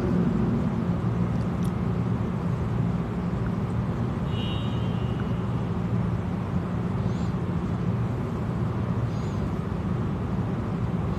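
Steady low hum and rumble of room background noise, with a faint brief high tone about four and a half seconds in.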